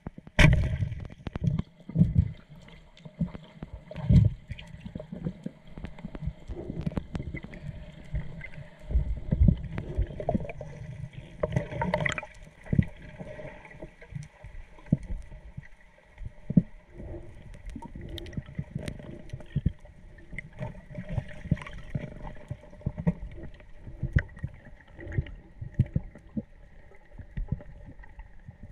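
Water gurgling and sloshing around a GoPro camera in the sea, with irregular dull knocks and surges.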